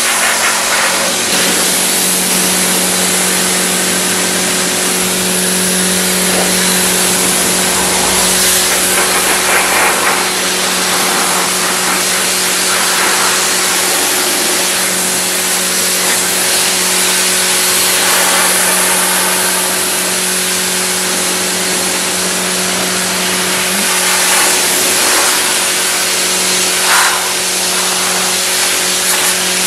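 Pressure washer running steadily: a constant motor hum under the loud hiss of the high-pressure water jet blasting caked mud off a car's body panels.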